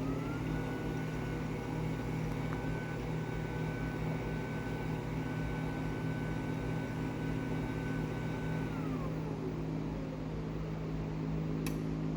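LiftMaster 98022 jackshaft garage door opener running the door down: its motor whine climbs quickly to a steady pitch, holds, then drops about nine seconds in as the opener slows near the end of travel. A click sounds near the end.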